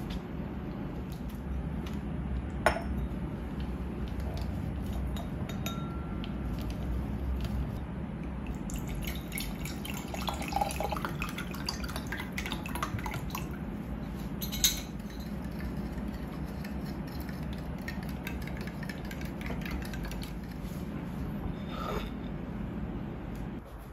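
Liquid poured from a bottle into a drinking glass about halfway through. A few sharp clinks of glass and a plate against the countertop, over a steady low hum.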